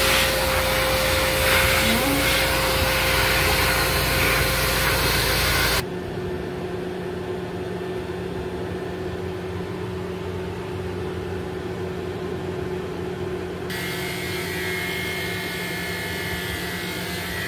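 Pet grooming dryer blowing air through its hose onto a dog's coat, stopping abruptly about six seconds in and leaving a quieter steady hum. Near the end electric dog clippers start up with a buzz.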